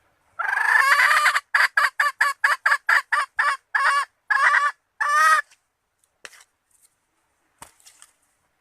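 Female red junglefowl calling, the hen call used to draw in males. It opens with one long note, runs into a quick series of short clucks, and ends on two longer notes about five seconds in.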